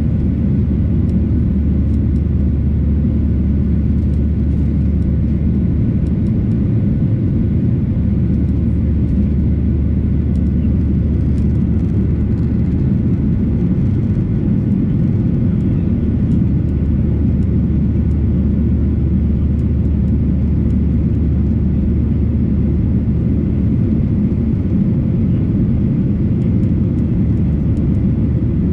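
Cabin noise of a Boeing 737-800 climbing after take-off: its CFM56-7B turbofan engines and the airflow heard through the fuselage beside the wing, a loud, even, deep rumble with a few faint steady tones above it.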